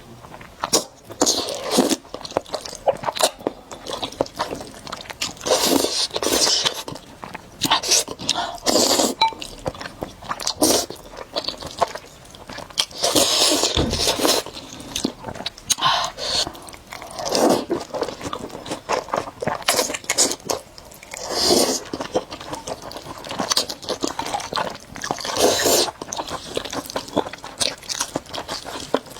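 Close-miked mukbang eating of spicy noodles: wet chewing and biting with crunchy mouth clicks, broken every second or two by short bursts of slurping.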